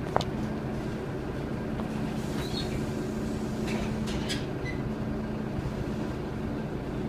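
Diesel engine of an Irisbus Agora Line city bus idling steadily, heard from inside the passenger cabin. A sharp knock comes just after the start, and a few short clicks come about four seconds in.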